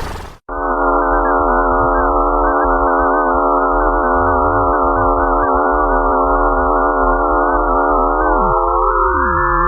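An eerie electronic drone of many steady sine-like tones sounding together and wavering slightly: a 'sound from space' of the kind made by turning spacecraft or telescope data into audio. It cuts in abruptly about half a second in. Near the end the lower tones slide down in pitch while the upper ones rise.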